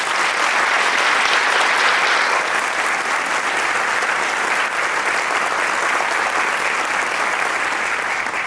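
A large seated theatre audience applauding, steady clapping throughout that fades out near the end.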